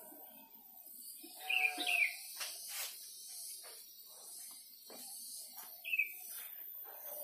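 Ambient birdsong: two short, sharp chirping calls, about one and a half seconds in and again near six seconds, over faint insect hiss, with scattered light knocks.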